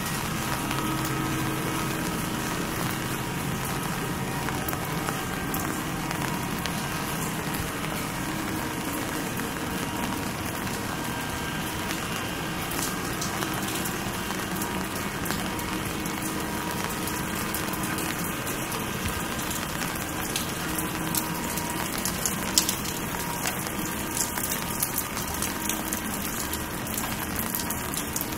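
Steady rain falling on a city street at night, with sharper drop clicks standing out more often in the second half.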